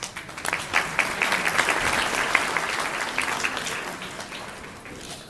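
Audience applauding; the clapping builds up about half a second in and fades away over the last couple of seconds.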